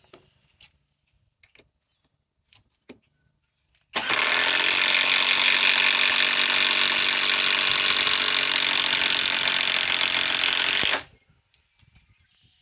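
Cordless impact driver hammering a 6-inch TimberLOK screw into wood. It runs steadily for about seven seconds, then stops abruptly. A few faint clicks come before it.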